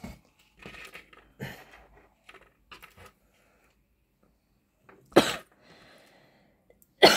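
Faint rustling and clicking of wires being handled and twisted together, then two short, loud coughs, one about five seconds in and one near the end.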